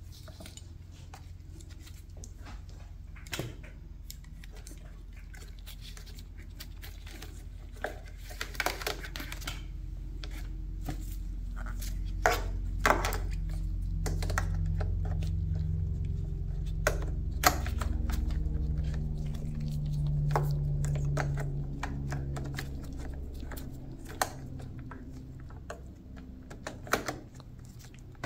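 Hands working plastic and metal motorcycle parts and wiring: scattered clicks, taps and light clatter as the wires are fed up through the tail section. A low rumble rises in the middle and fades again.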